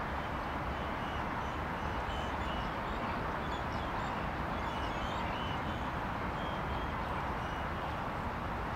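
Steady outdoor ambience: a constant hum and hiss like distant road traffic, with faint short chirps scattered through it.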